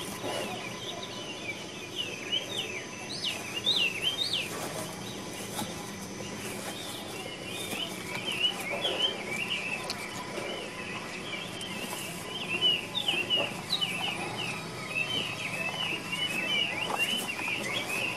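Small birds chirping and twittering, many short calls following one another almost without pause.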